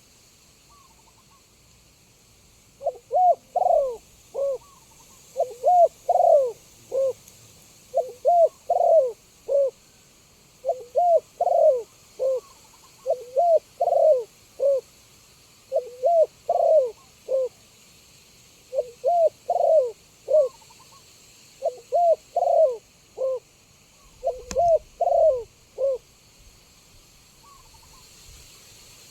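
Spotted dove cooing: about nine repeated phrases of several low, bending coo notes, one roughly every two and a half seconds. There is a single sharp click a few seconds before the last phrase.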